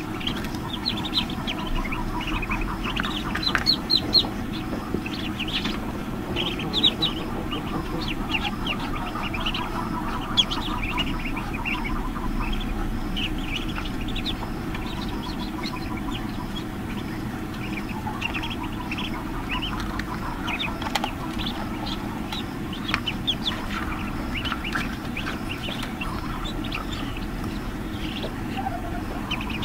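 Newly hatched ducklings peeping in an incubator's hatching tray, many short, high cheeps throughout, over the steady hum of the running incubator.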